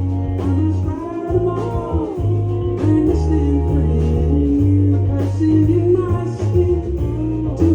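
Live band playing a song: a singing voice over guitar, a steady bass line and drum hits.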